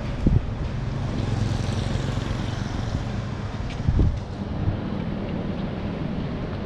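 Traffic on a wet road, heard with wind on the microphone; a vehicle's tyre hiss swells past about a second or two in. Two dull thumps come just after the start and about four seconds in.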